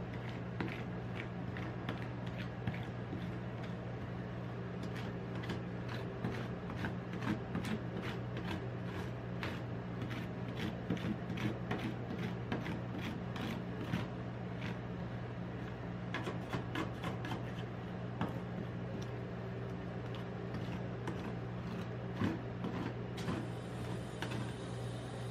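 Metal spatula scraping and tapping on the frozen steel plate of a rolled-ice-cream pan as the ice cream base is spread and smoothed thin: a run of quick scrapes and clicks over a steady low hum.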